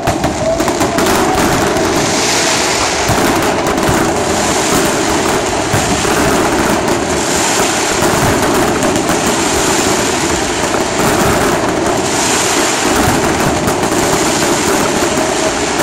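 Fireworks display going off in a dense, continuous barrage of bangs and crackles.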